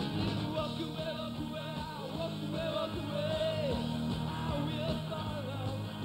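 Rock band playing live, with a man singing the lead vocal over the band and a drum beat.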